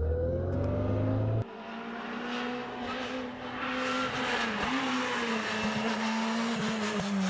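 Rally car engine: first, briefly, from inside a car, a loud engine note rising in pitch; then, after a sudden cut about a second and a half in, a Renault Clio RS rally car's engine heard from the roadside as it comes along the stage, a steady note with brief dips in pitch.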